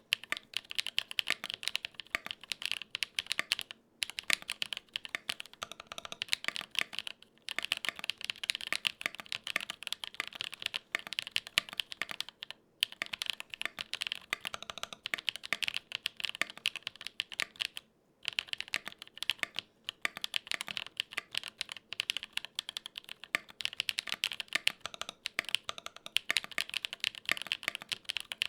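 Fast, continuous typing on a Gok 7V custom 75% mechanical keyboard with lubed tactile switches, the clacks coming in quick runs with a few short pauses.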